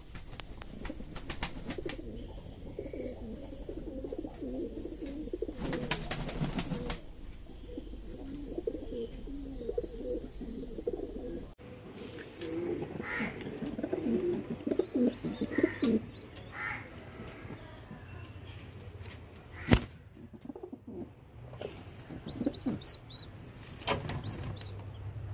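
Domestic pigeons cooing repeatedly, with a burst of wing flapping about six seconds in. A single sharp click comes near the end.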